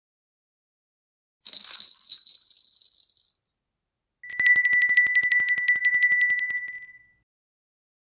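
A shake of jingle bells that starts sharply and fades away over about two seconds. After a short pause, a small metal bell is struck in a fast, even trill of about seven strikes a second, ringing at one steady pitch for about three seconds before stopping.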